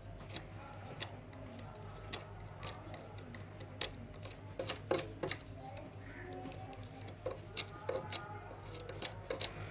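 Metal lice comb drawn through bent aluminium air-conditioner fins to straighten them, giving irregular sharp clicks as its teeth catch on the fins, over a steady low hum.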